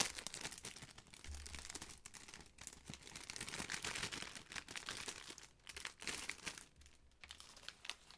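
Clear plastic packaging bag crinkling in irregular crackles as it is handled and pulled open, quieter near the end.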